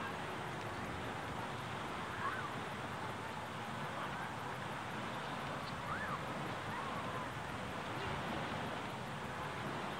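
Beach ambience: a steady hiss of wind and small waves washing onto the sand, with a few faint, short distant calls now and then.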